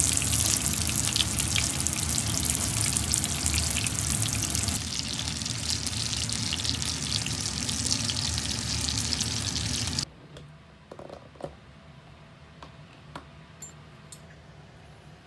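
Hamburger patties sizzling and crackling in hot fat in a frying pan. The sizzle cuts off suddenly about ten seconds in, leaving faint room tone with a few light clicks.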